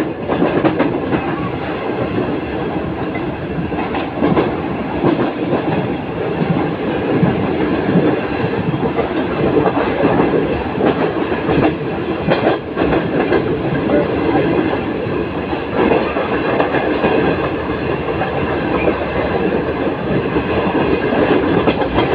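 Passenger train coaches running along the track, heard from aboard at an open doorway: a steady rumble and rattle of the carriage, with occasional sharp clacks from the wheels.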